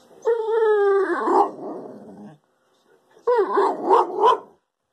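Boxer-type dog howling with its head thrown back, answering when asked if it wants food. It gives a drawn-out, slightly falling "woo" of about two seconds, then a shorter, wavering howl about three seconds in.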